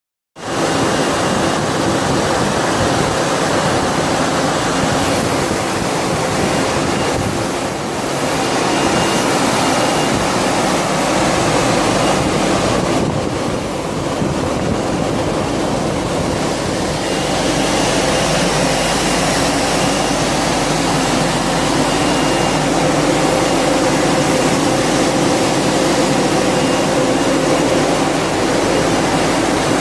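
Steady machine noise of a glass bottle frosting production line running, with its exhaust fans and chain conveyor.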